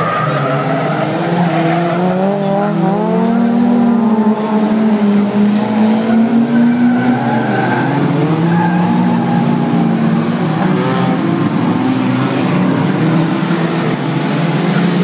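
A pack of 1600 cc-class autocross cars racing on a dirt track, their engines revving, pitch rising and falling as they accelerate and lift through the bend.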